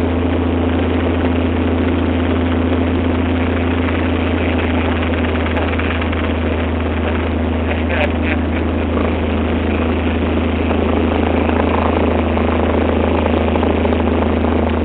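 Light propeller aircraft's engine running steadily at low power after touchdown, heard inside the cockpit as an even, unchanging drone.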